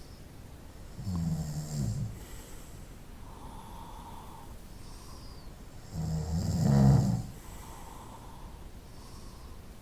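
A person snoring: two loud, rattling snores about five seconds apart, each lasting about a second, with softer breaths between them.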